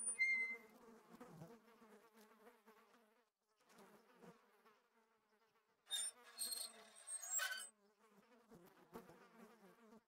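Flies buzzing, a faint wavering drone that swells and fades. A short high ringing tone sounds right at the start, and a louder, harsher burst comes between about six and seven and a half seconds in.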